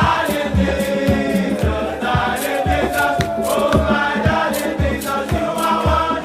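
Background music with choral singing over a steady drum beat.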